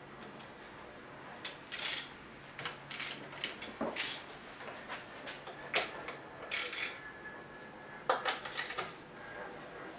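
Irregular metal clicks and clinks from a wrench and bolts on a Bridgeport J-head mill's cast head as the top cover is unbolted, with a brief run of clinks about eight seconds in.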